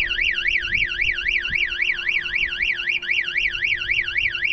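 Angler Armor boat security system siren sounding, a fast warble sweeping up and down about four times a second. It is the intruder alarm, set off by the accelerometer sensor when a locker lid is opened.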